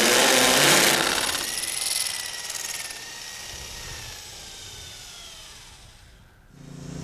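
Rotary hammer drill with a carbide-tipped masonry bit hammer-drilling into concrete, loud for about the first second. The drilling then stops and the motor winds down with a whine that slowly falls in pitch over several seconds.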